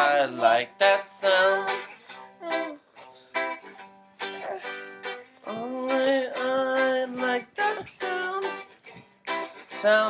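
Guitar strummed in an uneven rhythm, with a child's voice singing drawn-out notes over it at times and the sung word "sound" at the very end.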